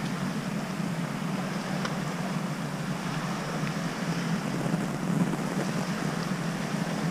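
Steady outdoor wind noise on the microphone, with a low, even drone underneath.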